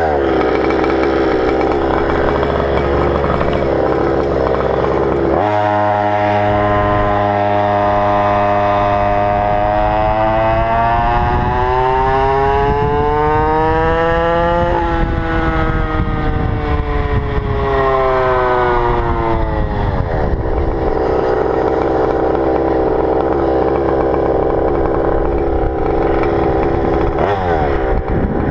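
GoPed's GP460 two-stroke engine running hard. Its pitch climbs for several seconds to a peak about halfway through, falls back, then holds steady. The owner hears an odd sound from it at wide-open throttle and asks what it could be.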